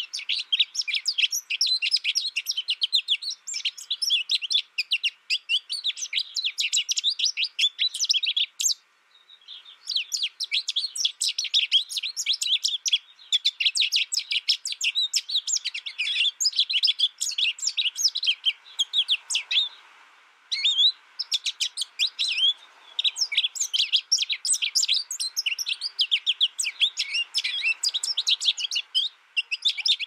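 Pet goldfinch singing a fast, continuous twittering song, breaking off briefly twice. The bird was reared in isolation and learned its song from a recorded tutor.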